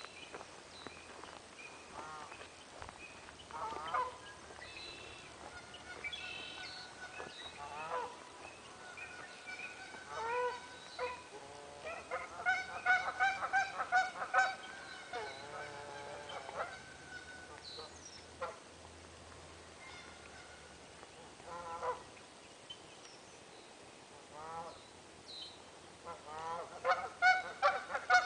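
Geese honking on a pond: scattered single calls at first, then a dense stretch of many overlapping honks about halfway through, and another near the end.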